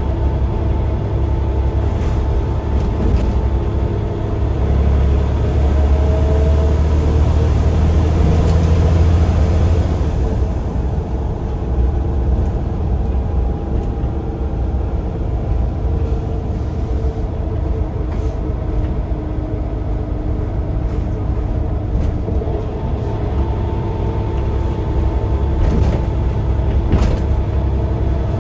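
Scania OmniCity single-deck bus engine heard from inside the saloon, running with a steady low rumble and a hum of a few steady tones. The rumble swells louder for a few seconds from about five seconds in, then settles. A few brief clicks and rattles come from the bus interior.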